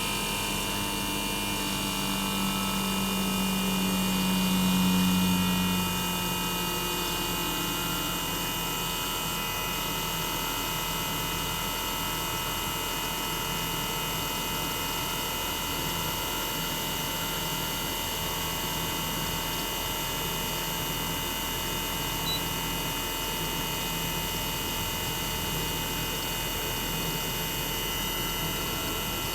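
Toshiba twin rotary inverter compressor (DA91A1F-42F) of a 1998 RAS-285LADR outdoor unit running with the unit opened up, heard raw: a steady hum under several high-pitched, steady inverter whine tones. The low hum swells about five seconds in, then settles back.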